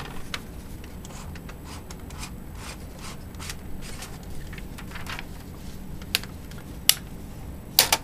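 A sheet of paper being pulled out of a Brother EP-43 typewriter's platen, rustling, with a few plastic clicks and a sharp snap just before the end as the flip-up paper cover is shut.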